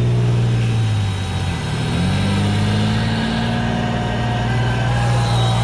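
Simulated engine sound from a radio-controlled M1 Abrams model tank's electronic sound unit. It runs steadily, and its pitch drops and climbs back up again about a second and a half in, as the throttle changes.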